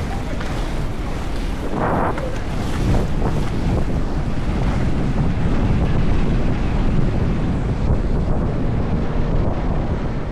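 Heavy wind noise buffeting the microphone at speed over a steady low rumble from skate wheels rolling on asphalt.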